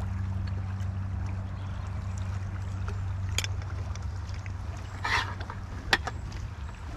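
Steady low rush of a flowing river, with a few sharp clicks of a fork and enamel plate from about three seconds in; the last click comes as the plate is set down on the camp table.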